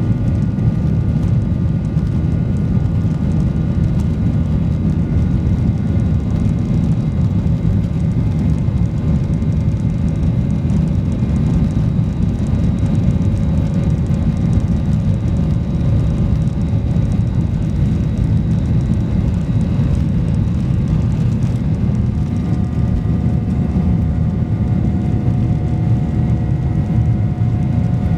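Boeing 737-800's CFM56 jet engines heard from inside the cabin: a steady loud rumble with several whining tones above it. About three quarters of the way through, new whining tones come in.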